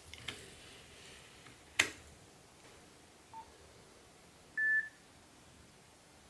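Nokia 7110 mobile phone being operated: a few light clicks, a sharp click about two seconds in, then a faint short low beep and, near five seconds in, a louder, higher single beep lasting about a third of a second, the phone's key or menu tones.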